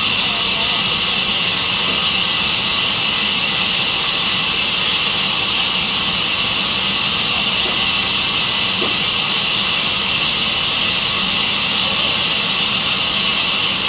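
Sawmill saw running steadily: a loud, even, high-pitched hiss-like noise with no change in pitch or level.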